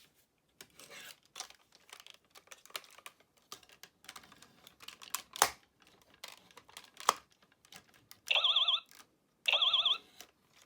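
Plastic clicks and knocks as a Buzz Lightyear action figure is handled and its buttons are pressed, then two short warbling electronic beeps from the toy's sound chip near the end.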